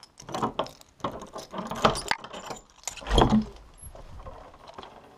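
Keys jangling and a steel padlock being unlocked and worked off a metal door's hasp: a run of sharp metal clicks and rattles, with a heavier knock about three seconds in.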